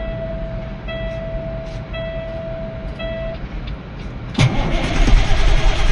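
Kenworth truck's diesel engine being cranked while a dashboard warning buzzer sounds in steady beeps about once a second. The engine catches about four and a half seconds in and runs loudly.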